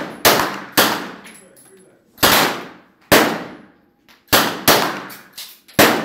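Handgun fired one shot at a time, seven shots at uneven intervals of about half a second to a second and a half, each followed by a fading echo.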